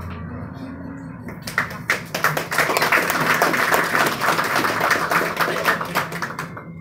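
Audience applauding. A few separate claps come about a second and a half in, swell into steady applause and die away near the end.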